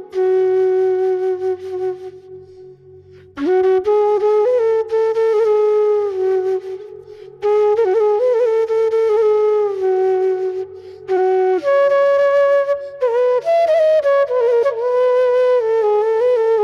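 Bashi, a Bengali bamboo flute, playing a slow melody of held notes with small slides between them, in phrases broken by short pauses, over a soft low backing.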